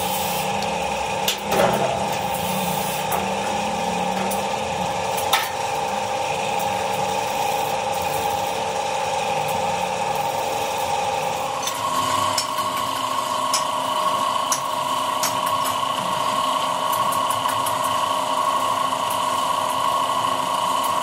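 MIG welding on steel: the arc crackles over a steady machine hum. A little past halfway the hum jumps higher in pitch, and there are two sharp knocks in the first half.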